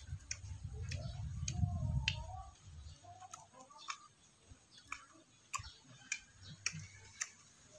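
A person chewing and sucking tamarind pulp with the mouth closed, making irregular wet clicks and smacks. A low rumble fills the first two or three seconds.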